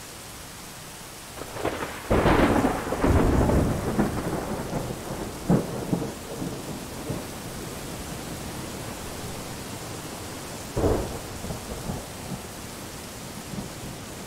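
Thunderstorm: a steady hiss of rain with rolls of thunder, the longest and loudest starting about two seconds in, and shorter rumbles near five and a half and eleven seconds.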